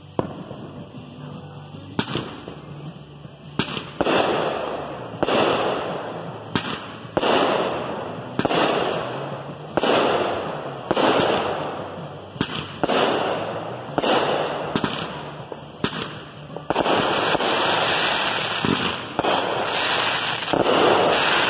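Consumer aerial fireworks going off one after another, about one sharp bang a second, each trailing off in a fading rush of noise. In the last few seconds the shots overlap into a continuous barrage.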